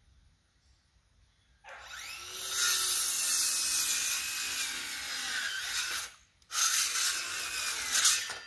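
A power tool working wood, starting about two seconds in: a long run of about four seconds, a brief stop, then a shorter run of about two seconds, its pitch gliding as it loads.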